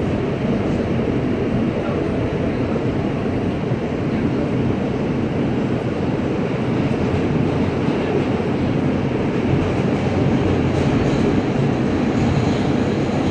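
Running noise heard inside an R160A subway car moving at speed: a steady rumble of wheels on rail, growing a little louder near the end.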